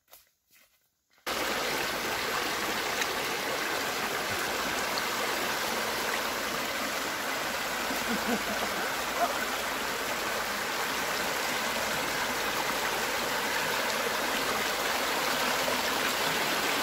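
River water rushing over rocks, a steady, even hiss that cuts in suddenly about a second in.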